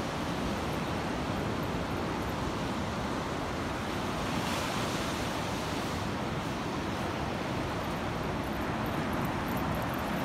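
Surf breaking and washing up a sandy beach, a steady hiss with wind rumbling on the microphone. The hiss swells briefly about four and a half seconds in.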